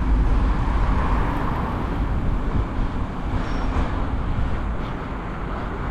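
Road traffic noise from passing cars, heard while cycling, with wind rumbling on the microphone. The noise is steady and eases slightly partway through.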